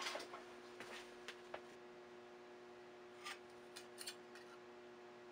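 Faint clicks and light clatter of steel blanking dies and sheet copper being handled on a workbench: a cluster of small knocks at the start, a few more about a second in, and another handful around three to four seconds in, over a steady low hum.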